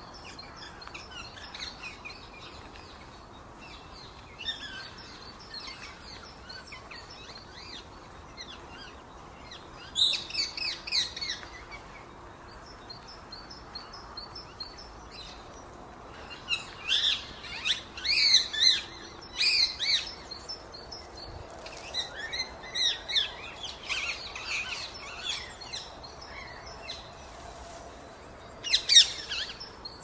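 Rose-ringed parakeets and other birds calling: a constant soft twittering of short chirps, broken by loud runs of sharp, repeated calls about a third of the way in, in a long cluster past the middle, and again near the end.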